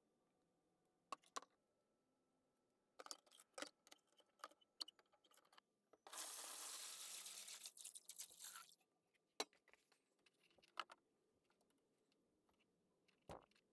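Water poured from a stainless pot into a plastic tub, a steady rush lasting about two and a half seconds from about six seconds in. Light clicks and taps of wire and metal being handled come before and after it.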